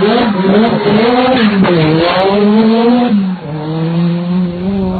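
Rally1 rally car's turbocharged four-cylinder engine revving hard. Its pitch climbs and drops several times through quick gear changes, dips briefly about three and a half seconds in, then holds steadier.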